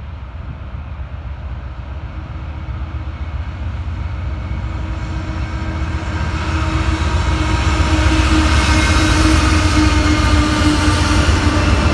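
Norfolk Southern freight train led by two GE diesel-electric locomotives (an AC44C6M and a C44-9W) approaching and passing close by: a diesel engine rumble and steel wheels on rail. The sound grows steadily louder over the first eight seconds, then stays loud as the locomotives go past.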